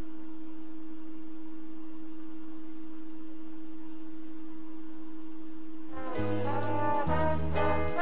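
A steady single-pitch tone holds for about six seconds, then brass-band jazz music comes in, with a bass line under the horns.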